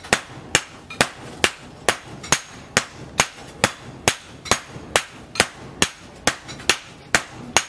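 Hammer blows on red-hot leaf-spring steel on an anvil, forging a billhook blade: sharp metal-on-metal strikes in a steady, even rhythm of a little more than two a second.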